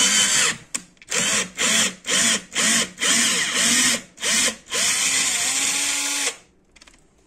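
Power drill boring into a hard plastic chair leg joint. It runs steadily, stops, then is pulsed in several short bursts, the motor speeding up and winding down each time, then runs for about a second and a half and cuts off sharply about six seconds in.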